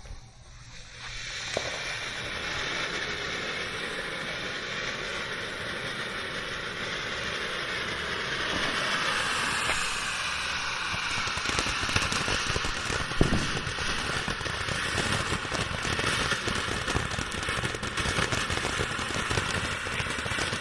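Ground fountain firework spraying sparks: a continuous hissing crackle that builds about a second in and carries on steadily, with a couple of sharper pops, once early and once about two-thirds of the way through.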